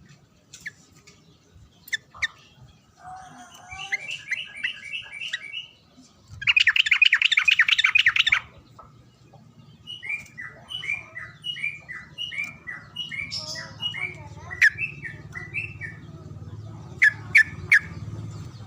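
Yellow-vented bulbul (trucukan) singing: series of short bubbling, chirped phrases, with a loud rapid trill about a third of the way in.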